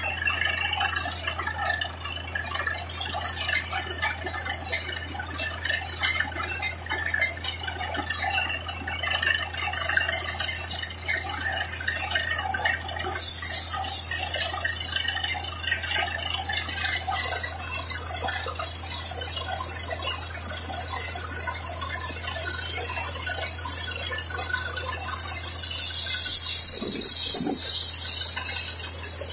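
Truck-mounted borewell drilling rig running as it drills, a steady low drone under the splashing of muddy flush water pouring out of the borehole. A loud hiss comes in about halfway through and again near the end.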